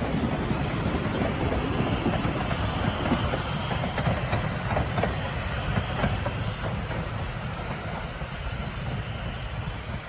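A 3-foot narrow-gauge freight train rolling past, its wheels clicking over the rail joints in a steady rumble that slowly fades over the last few seconds.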